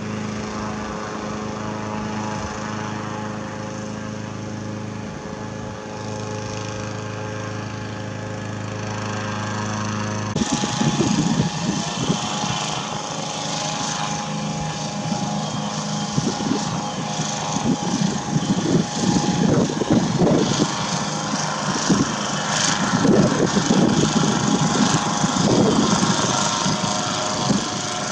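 4 HP air-propeller motor of an inflatable boat running with a steady drone. From about ten seconds in, gusts of wind rumble on the microphone over the motor.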